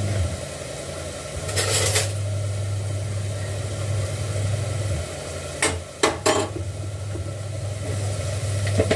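Hands kneading chapati dough in a metal bowl: soft squishing and working sounds, with a short rush of noise about one and a half seconds in and three sharp metal clinks a little after the middle.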